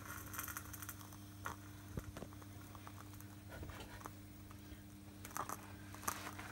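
Homemade wax candle with a string wick burning, giving faint, scattered crackles and ticks over a steady low hum.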